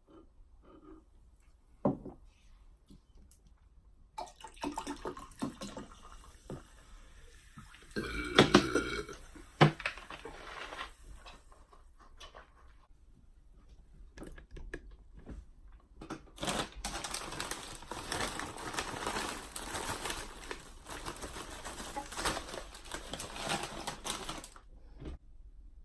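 Crinkly foil chip bag handled close to the microphone, in irregular sharp crackling that thickens into dense continuous crinkling about sixteen seconds in, with a few louder sharp sounds around eight to ten seconds in.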